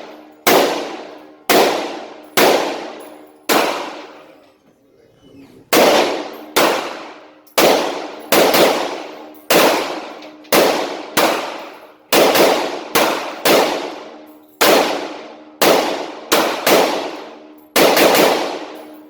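Semi-automatic AR-15 rifle (Core 15 Scout) firing a steady string of about twenty shots, roughly one a second, with a short pause about four seconds in; each loud crack is followed by a ringing decay.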